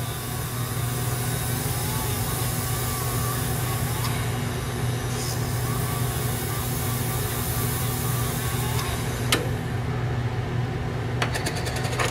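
Graver-sharpening machine's motor running steadily, with a hiss as a diamond dresser is held against the spinning rubber wheel to clean it. The hiss drops away about nine seconds in, and a few light clicks follow.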